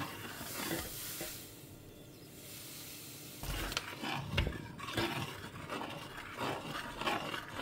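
Metal spoon stirring in a stainless steel saucepan of hot water, scraping and clinking against the pan, with a soft hiss in the first second or so; the stirring picks up about halfway through.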